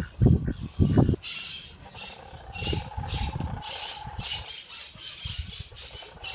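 Captive birds calling: a long run of short, high, harsh squawks repeated in quick succession, after a couple of low bumps in the first second.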